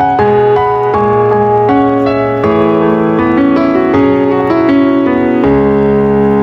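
Background piano music, a melody of quick single notes over held chords.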